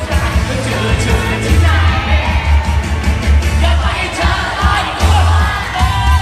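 Live Thai pop song played loud through a stage PA: a male singer's voice over a heavy, pulsing bass beat.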